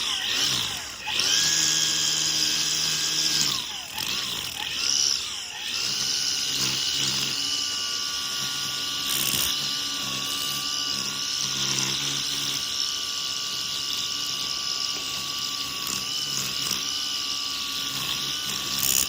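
Milwaukee electric string trimmer's motor whining as the freshly restrung line head spins: a short run first, then a steady run at constant speed, which tests the new line.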